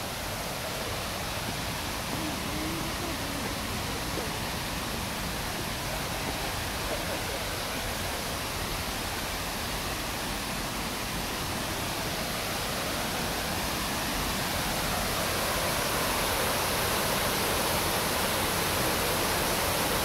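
A wide curtain waterfall pouring: a steady rush of falling water that grows louder over the last few seconds.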